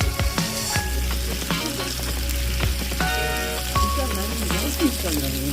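Pork belly (samgyeopsal) sizzling as it grills, with a steady fizz and dense crackling pops of spitting fat.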